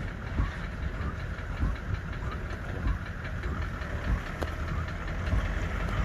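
Land Cruiser safari vehicle driving on a rough track: a steady engine and road rumble with repeated low jolts and rattles.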